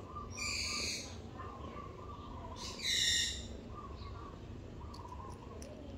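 Young tabby cat in heat calling: a drawn-out, wavering yowl, with two louder, higher cries about half a second in and about three seconds in. This calling is the sign of a cat in heat.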